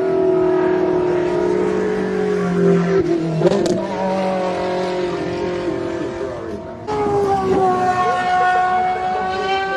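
Car engine held at steady revs, a droning pitch that drifts slightly. The sound changes abruptly about three seconds in and again about seven seconds in.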